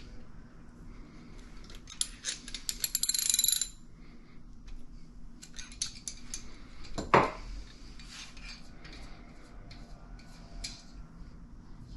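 Metal tools and engine parts clinking and rattling as they are handled on a workbench. A dense rattle runs from about two seconds to nearly four, and there is a single louder knock a little past seven seconds.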